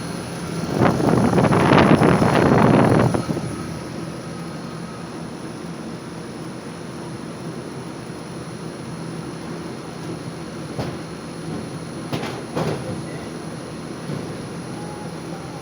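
Steady hum of a running VRF air-conditioning system. About a second in, a loud rushing hiss lasts around two seconds, and a few light clicks come later.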